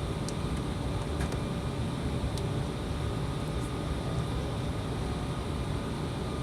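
Steady cabin noise inside an Embraer ERJ-175 jet with its engines running: a dense low rumble with faint steady tones above it and a few light clicks or rattles.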